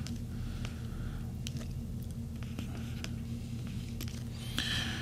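Steady low electrical mains hum in the recording, with a few faint clicks and a soft brief rustle near the end.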